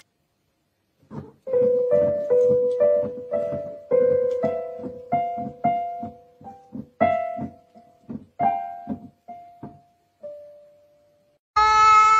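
Electronic keyboard played by a cat's paws: a slow, uneven run of single notes and small clusters, each ringing and fading, with pauses between. Near the end a cat gives a loud meow that falls slightly in pitch.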